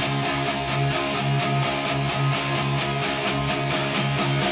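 Rock music with a fast, steady beat played through a pair of Fluid Audio F5 studio monitors and picked up in the room by a recorder's microphone.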